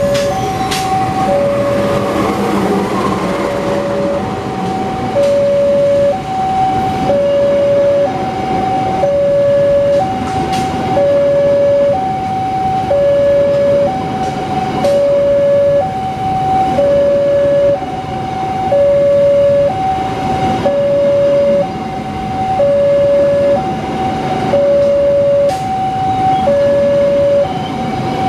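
Level-crossing warning alarm sounding an electronic two-tone high-low chime, one pair about every two seconds, over the steady rumble of a diesel-hauled passenger train passing through the crossing. There are a few sharp clicks as the carriages go by.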